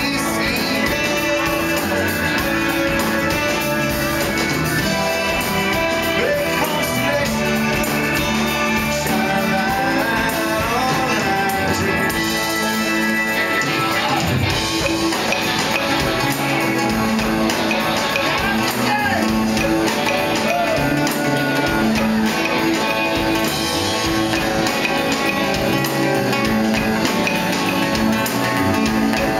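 Live band music with a strummed acoustic guitar and a violin, and some singing.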